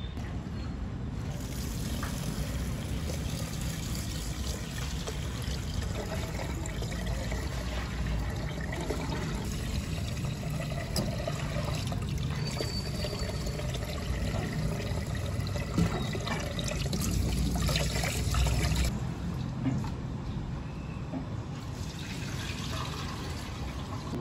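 Rice being rinsed by hand in a rice cooker's inner pot at a steel sink: water pouring and trickling, swishing around the hand, with the light scratch of grains rubbed together. It grows a little louder shortly before the three-quarter mark, then eases.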